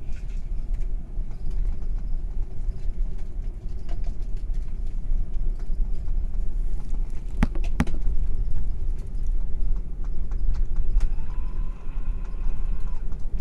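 Steady low rumble inside an Airbus A380 cabin, with light clicks and rattles throughout and two sharp knocks a little past halfway. Near the end a steady tone sounds for about two seconds.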